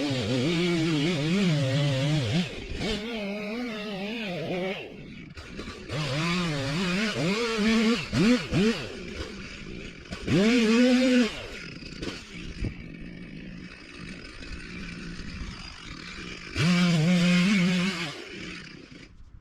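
Old two-stroke chainsaw revving in about four loud bursts, its pitch wavering up and down as it cuts into a tree. It drops back to a lower, quieter run between bursts.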